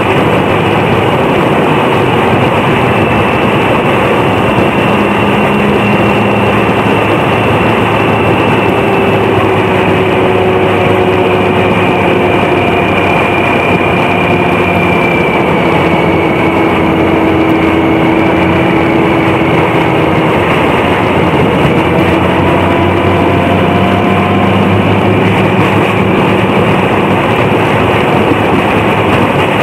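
Steady engine and road noise from inside a car cabin while the car drives downhill behind a motorcycle. Faint engine tones drift slowly up and down in pitch.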